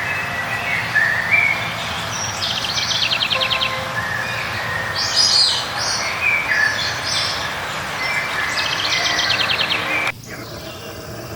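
Several forest songbirds singing over a steady background rush, with whistled notes, short high chirps and two rapid trills. The background drops abruptly about ten seconds in, as at an edit in the recording.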